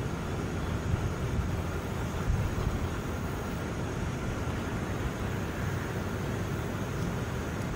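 Steady low outdoor rumble with a faint hiss above it, holding at the same level throughout.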